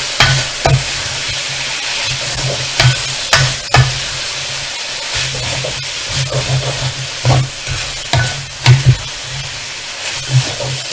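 Noodles and vegetables sizzling in a hot wok as they are stir-fried, with a steady hiss throughout. A spatula scrapes and knocks against the wok at irregular moments, about ten times.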